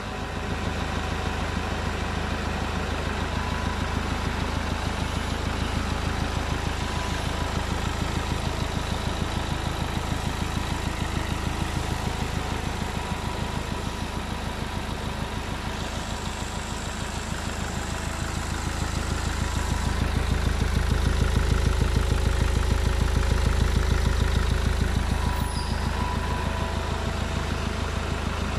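Iveco Daily 3.0 four-cylinder turbodiesel running at idle with a fast, even diesel beat, after its timing chain has been replaced. It swells a little louder for a few seconds past the middle, then settles back.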